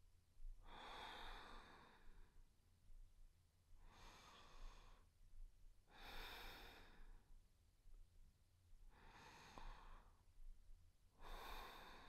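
A woman breathing softly and slowly, close to the microphone: five breaths, about one every two and a half seconds.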